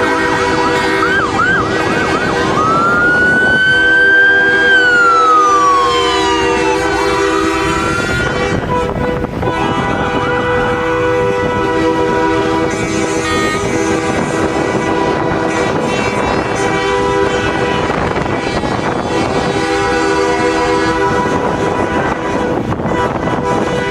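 Emergency-vehicle sirens yelping and then wailing up and down for the first several seconds, with short yelps again about ten seconds in. Under them, steady horn tones from the convoy's trucks sound at several pitches throughout.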